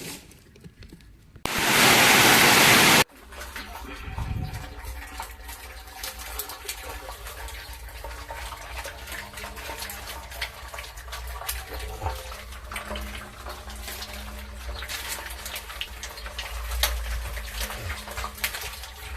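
Water rushing and splashing: a loud burst of rushing water about one and a half seconds in that cuts off suddenly a second and a half later, then steadier running and splashing water with many small ticks and a low rumble.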